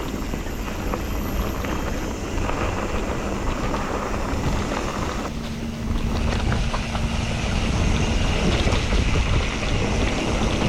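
Mountain bike riding along a dirt trail: wind rushing over the microphone over tyre roll, with scattered short rattles and clicks from the bike, a little louder in the second half.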